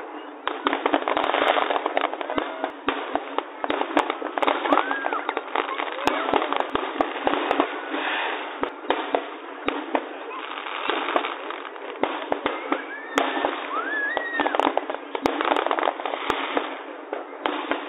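Fireworks going off all around: many sharp bangs from aerial shell bursts and firecrackers, over dense continuous crackling. A few brief whistling tones rise and fall through it.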